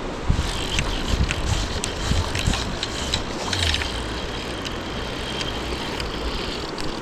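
Wind buffeting the microphone in gusts, with scattered sharp ticks and clicks over a steady background hiss of running river water.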